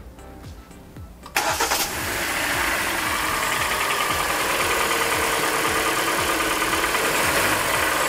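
2013 Hyundai Elantra's DOHC 16-valve four-cylinder engine starting about a second in, then running at a warm idle with a fast, light ticking knock. The owner takes the knock most likely for piston slap.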